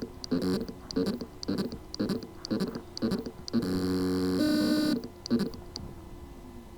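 2.5-inch WD My Passport hard drive with loose spindle-motor contacts. The motor stutters in short pulses about twice a second, then hums steadily at a pitch for about a second and a half, then winds down with a falling tone. It can spin but cannot reach full speed.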